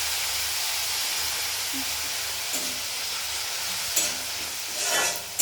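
Masala paste of onion, garlic, ginger and tomato sizzling and hissing steadily in hot oil in a pan, just after a little water was added. A couple of sharp knocks come near the end.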